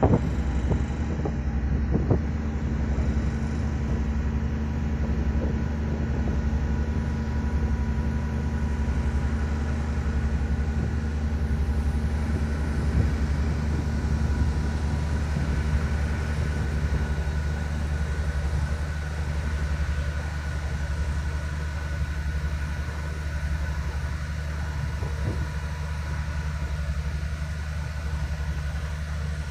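Steady low drone of a ro-ro car ferry's engines while the ship is under way at sea, with a faint higher hum. There are a couple of light knocks in the first two seconds.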